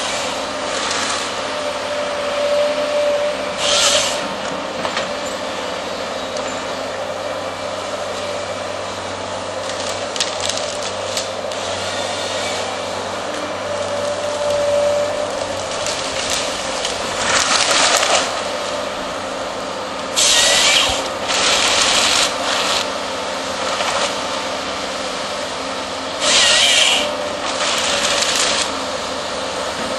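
Hydraulic forestry harvester head on a tracked excavator working timber: the machine runs steadily with a hydraulic whine now and then, and about half a dozen short bursts of hissy noise as the head's chain saw bar cuts through stems.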